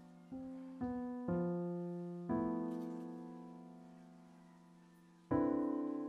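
Slow, gentle solo piano music: notes and chords struck one at a time within the first couple of seconds, each left to ring and fade, then a long pause on a held chord before a louder chord about five seconds in.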